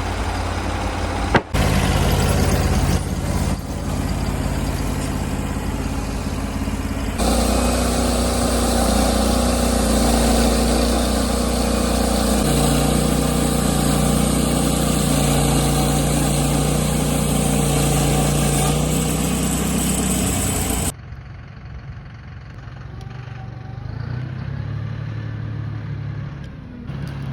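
Sawmill engine running steadily through several abruptly cut clips, with a sharp click about a second and a half in. The sound jumps louder and fuller about 7 seconds in, and drops quieter and duller about 21 seconds in.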